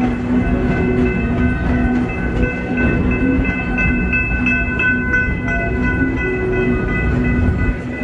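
Amusement-park railway train rolling along its track, heard from aboard: a steady low rumble of the cars with several steady high-pitched tones over it.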